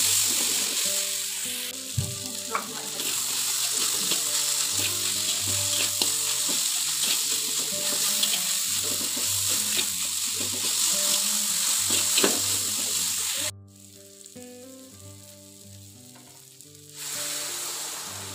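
Spice paste sizzling in a hot metal wok while a metal spatula stirs it, with sharp clicks and scrapes of the spatula against the wok. The sizzling cuts off suddenly about 13 seconds in, leaving only soft background music, then comes back briefly near the end and fades.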